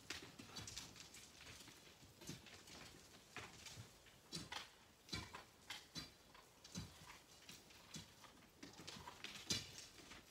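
Faint, irregular sharp knocks and clicks of hand tools on rock, about one every second.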